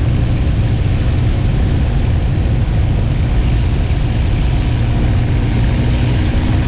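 Hawker Hurricane's Rolls-Royce Merlin V12 engine running steadily in cruising flight, with slipstream noise, heard from inside the cockpit.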